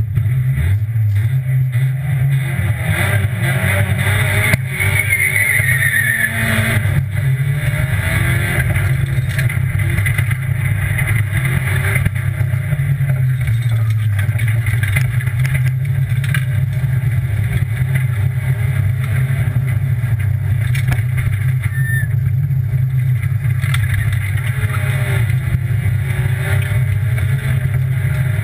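Rally car engine heard from inside the cockpit, running hard under load on a special stage, its pitch rising and falling.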